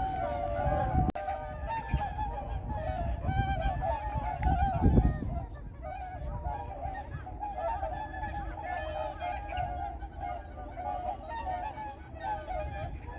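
A flock of whooper swans calling, many loud overlapping calls throughout, with a low rumble of noise about a second in and again around five seconds in.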